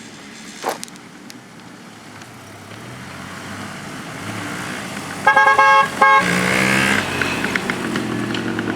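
A racing lawn mower's small engine running and getting steadily louder as it approaches, with a vehicle horn sounding twice, a long blast then a short one, about five seconds in.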